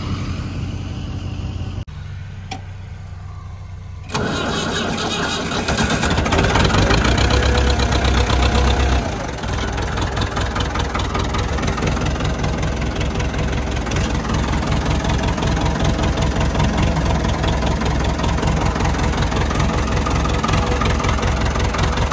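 A pickup's engine idles for the first two seconds. Then, about four seconds in, the diesel engine of a Ford 5600N narrow orchard tractor starts, runs loudest for a few seconds and then settles into a steady idle.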